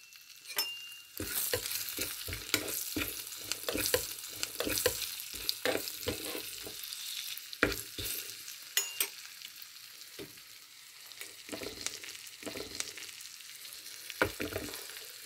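Cumin seeds, whole spices and slit green chilies sizzling in hot oil and ghee in a small nonstick frying pan, a tempering (tadka) for jeera rice. A spoon stirs and scrapes the pan in short repeated strokes, starting about a second in.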